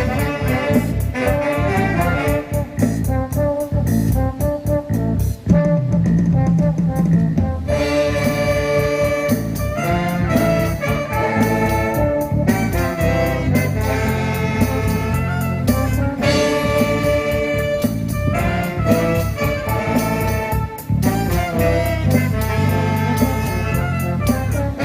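Amateur band playing live: brass and saxophones carry the tune over a steady drum beat.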